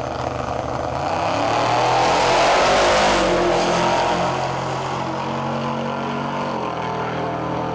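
Two drag-racing cars, one a vintage pickup, launching off the start line at full throttle. The engine noise swells to its loudest two to three seconds in and then fades as they run away down the strip, over a steady engine hum.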